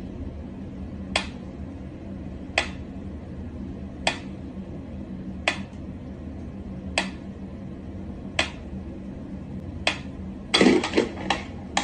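Clockwork pyramid metronome ticking slowly, one sharp tick about every second and a half. Near the end a quick run of louder clatters as the cat paws at the swinging pendulum.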